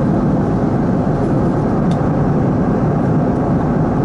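Steady airliner cabin noise in flight: the continuous low rush of the jet engines and airflow. A faint click comes about two seconds in.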